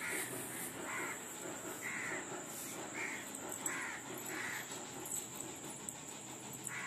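A bird calling over and over, short calls about once a second, with a pause of about two seconds after the middle.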